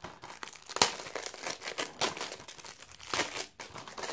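Clear plastic shrink wrap being torn and peeled off a DVD case, crinkling and crackling irregularly, with a sharp snap about a second in.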